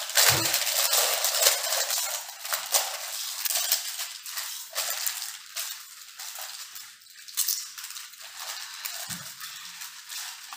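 Small Lay's potato-chip packets being crinkled and torn open by hand: a dense, continuous crackling rustle of foil-lined plastic bags, louder in the first few seconds.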